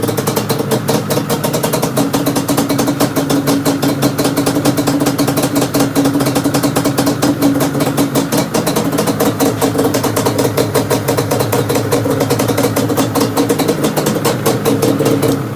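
2001 Yamaha Banshee's twin-cylinder two-stroke engine idling steadily on freshly cleaned and synced carburetors, then shut off abruptly at the very end.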